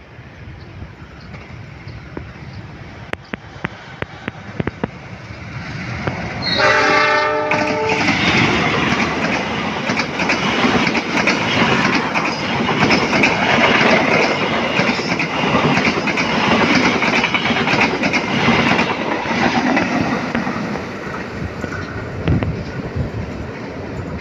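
Diesel-electric passenger train approaching: the locomotive sounds one horn blast of a little over a second, then the locomotive and carriages run past with steady wheel-on-rail rumble and clickety-clack, easing off near the end.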